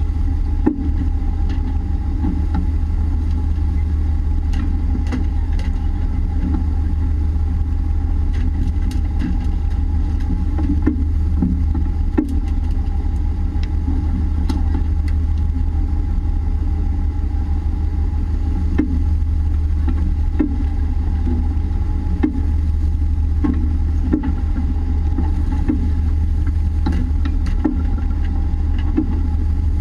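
Fishing boat's engine running steadily, a constant low drone with a steady hum over it, and scattered short knocks.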